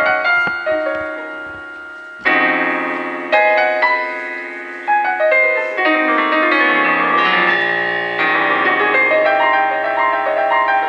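Yamaha digital piano played solo in a classical piece: a chord fades away, then a loud chord strikes about two seconds in, followed by more chords and a busier run of notes.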